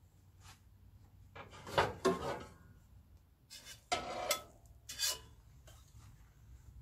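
A spatula scraping across a pizza stone as it is pushed under a crisp-baked pizza, in three short rasping scrapes.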